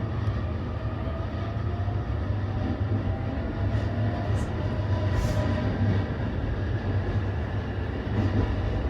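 E531 series electric train heard from inside a carriage while running: a steady low rumble, with a faint motor whine that rises slowly in pitch over the first few seconds.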